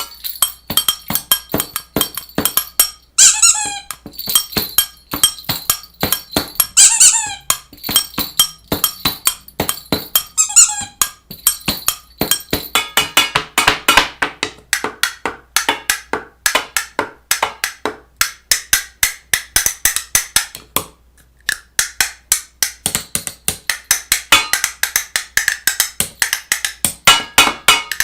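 Rapid, irregular clicking and knocking of hard objects, with three short squeaks about three, seven and ten and a half seconds in.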